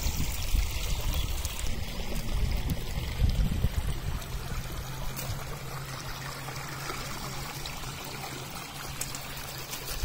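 Shallow water running and trickling through a narrow channel.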